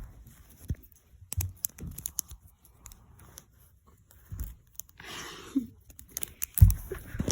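Plastic fidget toys handled close to the microphone: scattered clicks and taps, a crinkly rustle about five seconds in, and a dull thump near the end.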